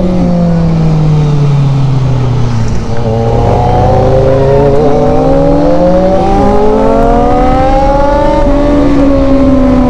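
Motorcycle engines under way. The engine note falls for the first three seconds as the bikes ease off, then rises steadily under acceleration and drops back about eight and a half seconds in.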